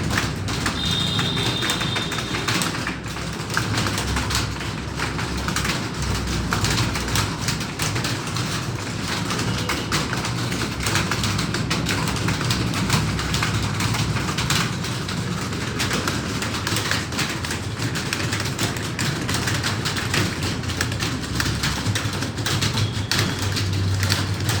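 Many computer keyboards clattering at once as a roomful of people type at speed: a dense, continuous patter of key clicks.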